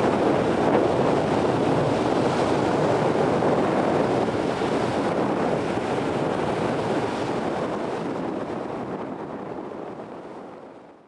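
Steady wind rushing over the microphone together with the wash of wind-chopped sea water, fading out over the last few seconds.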